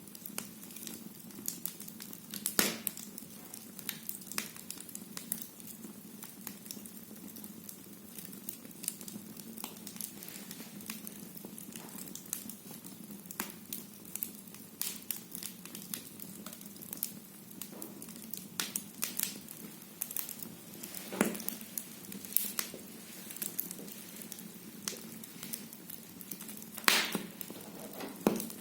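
Firewood crackling in a fireplace: a steady run of irregular snaps and pops, with a few louder pops, the loudest near the end.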